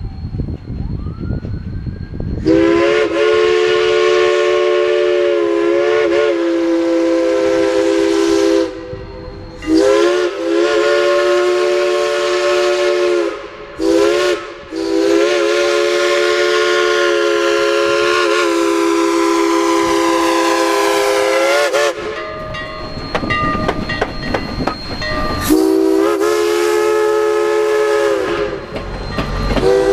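Steam locomotive W&L 203's chime whistle blowing the grade-crossing signal: two long blasts, a short one and a long one. The train then rumbles past and the whistle sounds again near the end.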